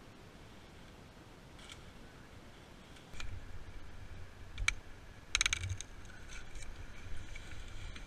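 Climbing gear handled up in a tree: a low rumble on the microphone starts about three seconds in, with a few sharp clicks and clinks near the middle.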